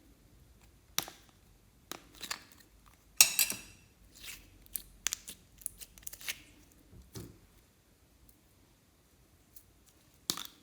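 Close-up handling sounds of slime-making: a string of sharp clicks, snips and short crackling bursts, the loudest and longest about three seconds in, then a lull and one more sharp click near the end.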